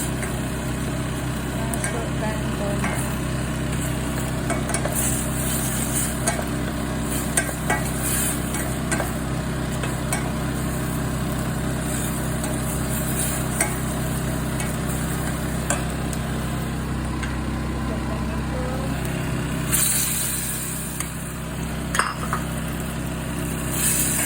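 Beef mince frying in a pan, sizzling, stirred with a utensil that clicks and scrapes against the pan now and then. A steady low hum runs underneath.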